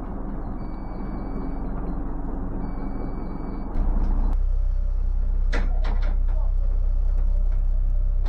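The yacht's engine running steadily, with a two-tone beep sounding about a second on and a second off. A bit under four seconds in the sound changes abruptly to a louder, heavy low rumble with a few short knocks.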